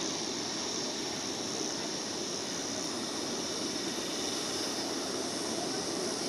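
Steady outdoor noise: wind rushing over the microphone under a constant high hiss, even throughout.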